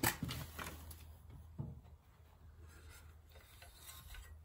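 A few light clicks and faint rubbing from small metal hinge parts being handled and fitted, over a low steady hum. The clicks come in the first second and a half.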